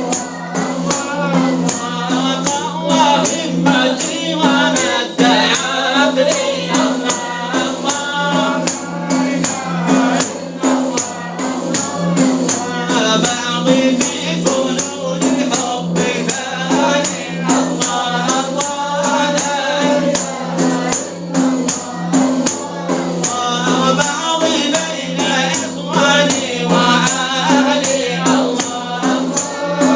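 Arabic Sufi devotional chant (inshad) sung by voices in chorus, over hand-held frame drums beating a steady, quick rhythm.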